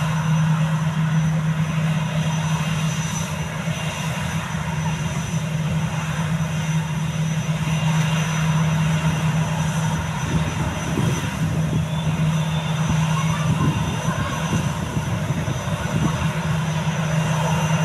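Airbus A320-214's CFM56-5B turbofan engines running during the take-off roll: a steady low drone under a broad rushing noise, the drone wavering for a few seconds around the middle.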